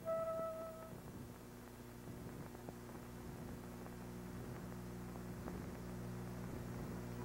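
A last held note of the song fades out about a second in, leaving a low steady hum with faint hiss.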